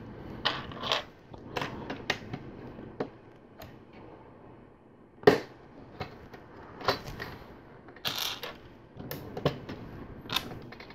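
Plastic LEGO pieces being handled and pressed together: irregular sharp clicks and short scrapes, the loudest snap about five seconds in.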